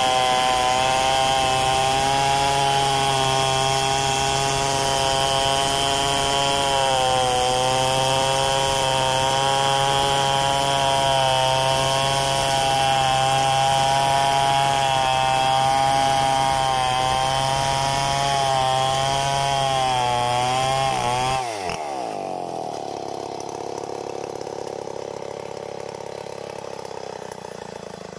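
Big two-stroke chainsaw ripping lengthwise through a molave hardwood log, held at steady high revs under load with a slight wavering in pitch. About three-quarters of the way in, the engine pitch falls sharply and the sound gets quieter.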